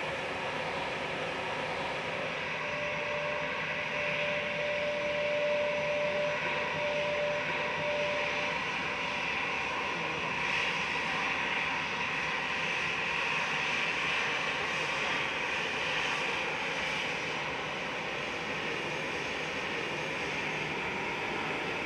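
Jet airliner's engines running, a steady rushing noise with a thin steady whine held from about three seconds in to about eight seconds in.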